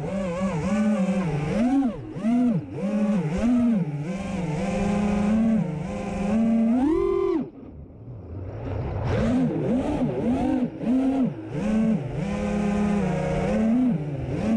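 Brushless motors and props of a 5-inch FPV freestyle quadcopter (Hypetrain 2450kv motors, DAL Cyclone 5050 props) whining, the pitch swinging rapidly up and down with throttle. About seven seconds in, the whine climbs and then cuts off as the throttle is chopped, before climbing back about a second later.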